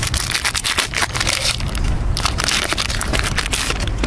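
Foil wrapper of a baseball-card pack crinkling in the hands, a dense run of crackles, as the cards inside are handled.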